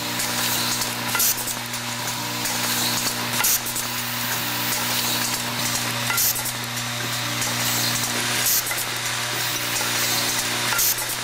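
Automated pneumatic assembly machine running: a steady hiss and hum, with a few sharp clicks scattered through.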